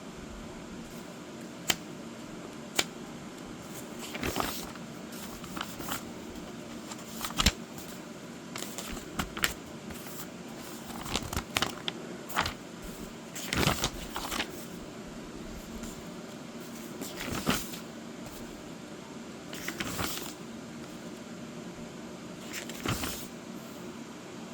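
Paper pages of a colouring book being turned and handled: papery swishes every few seconds and a few sharp taps, over a steady room hum.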